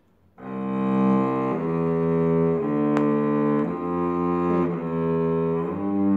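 Solo cello bowed in slow, sustained notes that change about once a second, starting about half a second in: a broken-arpeggio exercise through the scale, with brief slides between some notes as the left hand shifts position.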